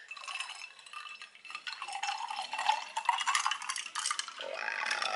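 A spoon stirring an iced coffee drink in a glass, with rapid, continuous clinking of ice and metal against the glass.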